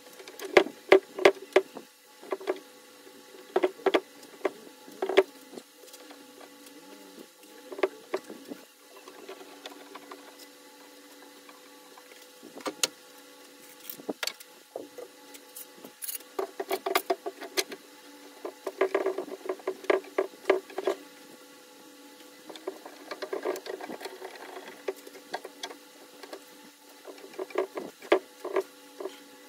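Hardwood strips and clamps being handled during a cutting-board glue-up: irregular wooden clicks and knocks, the loudest about a second in, with runs of quick clicking around the middle and near the end, over a faint steady hum.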